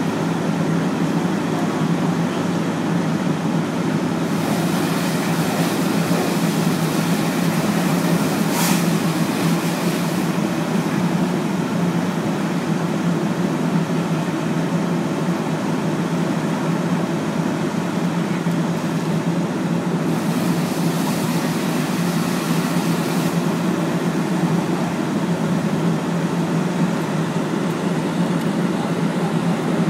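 A vehicle engine idling with a steady low drone, with two stretches of hiss, one from about four to ten seconds in and one from about twenty to twenty-three seconds in, and a single sharp tick near nine seconds.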